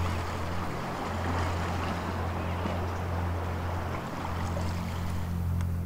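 Sea surf and wind, an even rushing wash that swells and eases, over a steady low hum.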